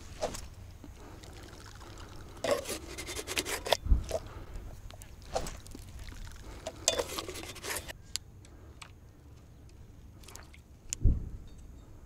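A steady low rumble of wind on the microphone, with several bursts of rattling and scraping handling noise from fishing gear, and a single low thump near the end.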